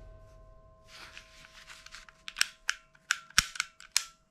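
Sharp plastic clicks and clacks from handling black plastic toy pistols, about a dozen irregular strikes starting about a second in, with the loudest ones, including a heavier knock, in the last two seconds.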